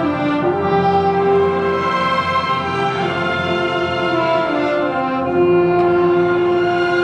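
Symphony orchestra playing film music live, strings and brass together in long held chords that shift every second or two, the brass to the fore.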